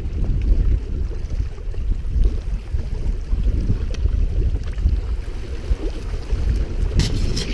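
Wind buffeting an action-camera microphone, a loud gusty low rumble. A few sharp clicks come near the end.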